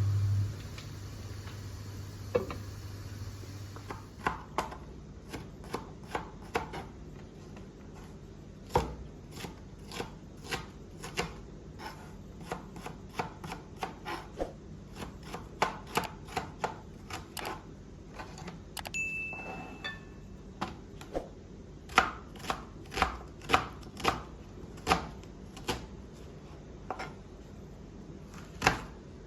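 Knife chopping food, with single sharp strokes at an uneven pace, about one or two a second, sometimes in quicker runs.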